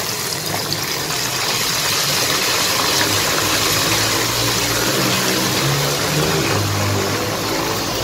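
Sliced onions and ginger-garlic paste sizzling steadily in hot oil in a wok, with a faint low hum underneath.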